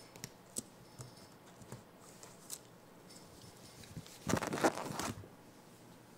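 Baby cinnamon capuchin monkey scrabbling at a mirror and over a fleece blanket: scattered light taps and scratches, with a louder rustle lasting under a second about four and a half seconds in.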